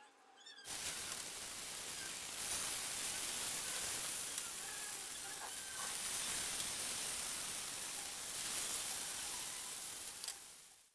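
Masala-marinated pearl spot (karimeen) fish sizzling steadily in hot oil in a frying pan, starting about a second in and cutting off just before the end.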